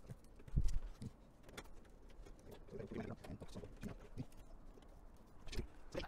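Handling noise of PC power supply cables being pushed and routed behind a Fractal Define 7 case: irregular soft knocks and clicks of cables and hands against the steel case, with a dull thump just over half a second in.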